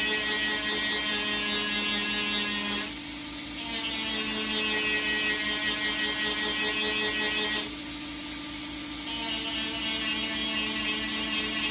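A small high-speed electric power tool, of the grinder or drill kind, running steadily with a buzzing whine; its sound drops twice for about a second and then comes back up.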